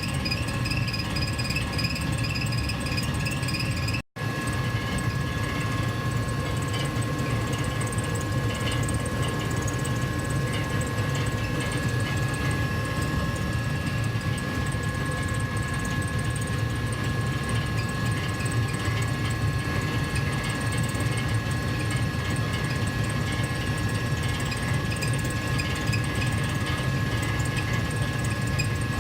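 Gas furnace heater running steadily: a continuous low rumble with two faint, steady whining tones above it. The sound cuts out for an instant about four seconds in, then carries on unchanged.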